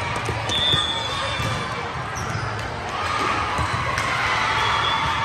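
Volleyball gym sound: balls being struck and bouncing off the court with sharp smacks, a few short high squeaks, and spectators' cheering and chatter that swells about three seconds in.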